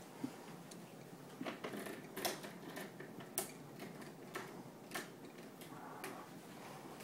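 Irregular small clicks and taps from a plastic speed cube and a screwdriver being handled while the cube's screws are tightened, a few sharper clicks among them.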